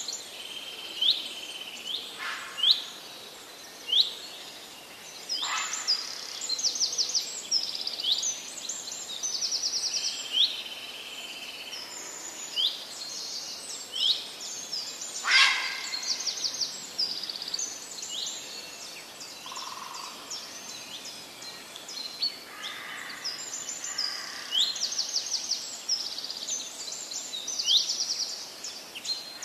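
Forest birds chirping throughout, with repeated short rising calls and quick trills, over a steady hiss. A few sharp knocks stand out, the loudest about fifteen seconds in.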